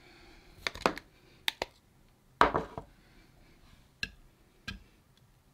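Light clicks and knocks of small hard objects being handled, about eight scattered through a few seconds, the loudest about two and a half seconds in, over faint rustling.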